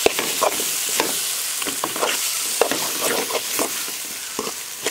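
Metal spoon stirring and scraping a thick masala paste in a metal pot on the stove, with frequent irregular scrapes and knocks against the pot over a steady frying sizzle.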